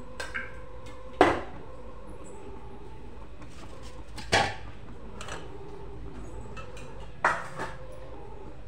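Steel kitchen vessels and utensils being handled and set down: three sharp metal clanks about three seconds apart, with a few lighter knocks between, over a steady low hum.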